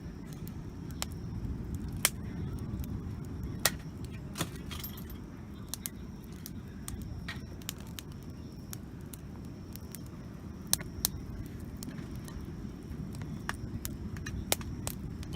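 Wood campfire crackling, with irregular sharp pops and snaps, some louder than others, over a steady low rumble.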